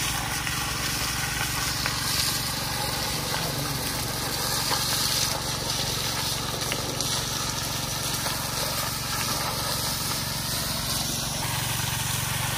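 An engine-driven water pump runs steadily, feeding a high-pressure hose whose jet hisses as it blasts into a sand-and-gravel bank to wash out the gem-bearing gravel.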